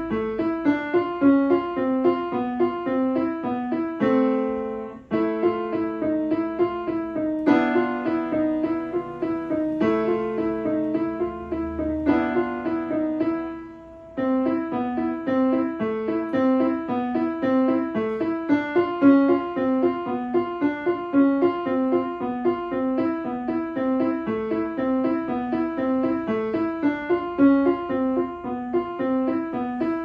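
Kawai grand piano played solo: a steady stream of quick notes, with a short pause a little before halfway before the playing carries on.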